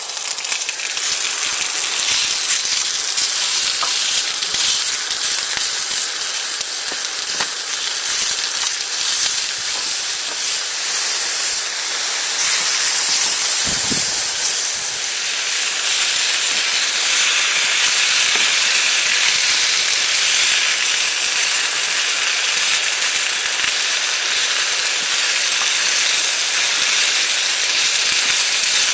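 Steady sizzling hiss of camp cooking, with a few faint crackles.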